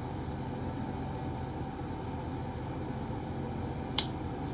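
Steady low background hum with one sharp click about four seconds in.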